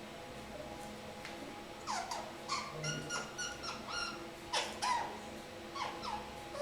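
Young kakariki parakeet making a string of short squeaky calls, several sliding down in pitch, with a quick run of chattering notes in the middle.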